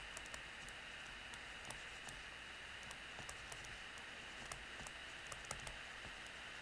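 Faint ticks and light scratching of a stylus writing on a tablet screen, over a steady background hiss.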